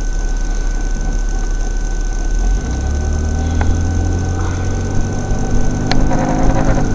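Vehicle cabin noise while driving: a low engine and road rumble. About two and a half seconds in, the engine note rises and climbs slowly in pitch as the vehicle speeds up. A thin steady high whine runs under it.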